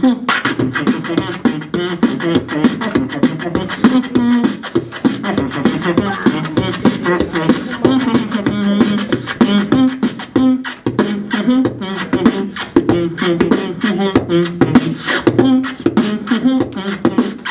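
Beatboxing into a handheld microphone: a fast, unbroken run of vocal drum sounds, sharp clicks and hits, with short hummed low tones between them.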